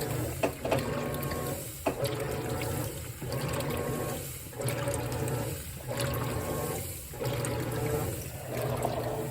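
Whirlpool WTW4815EW1 top-load washer agitating: its single-action agitator churns clothes through water with a motor hum. The agitator moves in strokes of about a second each, separated by brief pauses.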